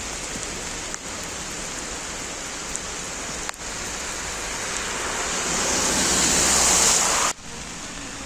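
Heavy rain falling steadily on a wet street. About halfway through, a rising hiss of tyres on the flooded road swells as a car drives past, then breaks off abruptly near the end.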